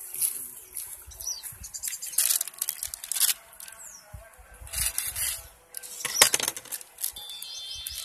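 Handling noises of food preparation: irregular rustling and crinkling as a plastic spice packet and a clay pot of raw liver are handled, with a sharp knock about six seconds in.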